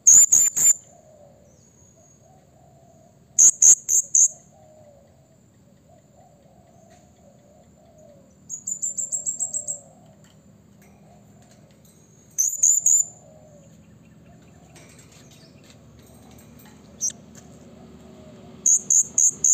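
Male blue-crowned hanging parrot (serindit) calling: shrill, high-pitched bursts of a few sharp notes every few seconds, one of them a quick run of about ten notes about nine seconds in. A faint warbling sits underneath throughout.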